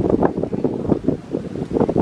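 Small farm tractor's engine running under load as it hauls a loaded cart through deep mud, a low, uneven chugging, with wind noise on the microphone.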